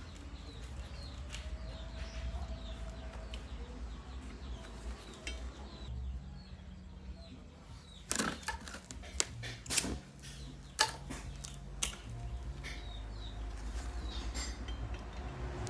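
A handful of sharp metal clinks and knocks, bunched about eight to twelve seconds in, over a low steady hum.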